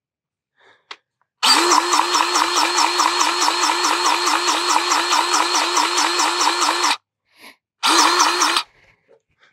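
Battery-powered grease gun running, its pump pulsing rapidly at about five strokes a second, as it forces grease into a mower deck spindle's grease fitting: one long run of about five seconds, then a short second burst.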